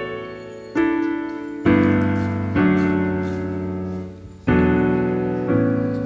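Background piano music: slow chords struck about once a second, each ringing and fading before the next.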